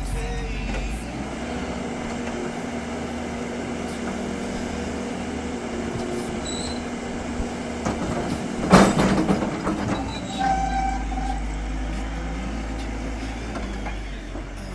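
Diesel engine of heavy earth-moving machinery running steadily under load, with a loud clank about nine seconds in.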